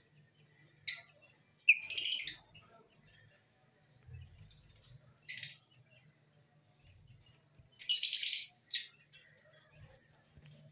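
Caged lovebirds giving a few short, high-pitched chirps, the longest and loudest about eight seconds in.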